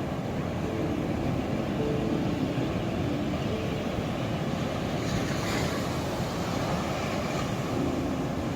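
Ocean waves breaking and washing on a shore, a steady low rushing with one wave surging up into a brighter hiss about five seconds in.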